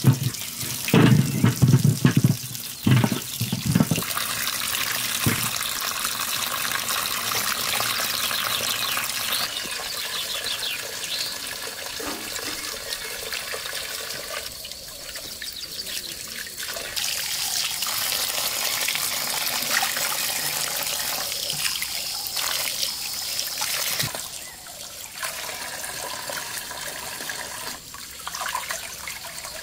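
Water running and splashing steadily, with a few heavy knocks in the first few seconds; the flow eases off briefly twice, once in the middle and once near the end.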